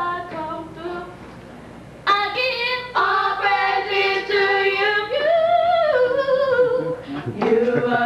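A small group of women singing a gospel song, with long held notes. The singing drops low about a second in and comes back in strongly about two seconds in.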